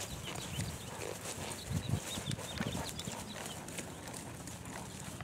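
Quarter horse walking away on grass, its hooves landing as a few dull, uneven thuds.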